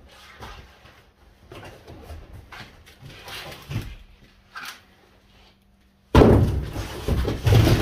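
Handling noise on a steel tool chest being unboxed: scattered light knocks for several seconds, then about six seconds in a sudden loud, noisy clatter lasting about two seconds.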